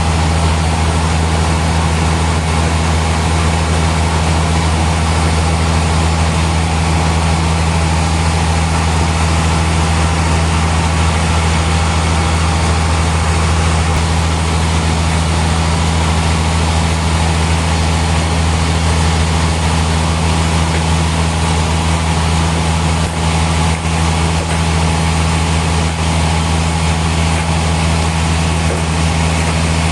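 Sawmill machinery running with a loud, steady low drone and hum that holds even throughout.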